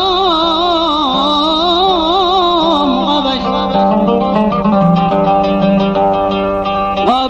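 Instrumental passage of a Yemeni wedding song: a wavering melody with heavy vibrato over a steady drone. About halfway through it gives way to a run of rapid, repeated plucked-string notes.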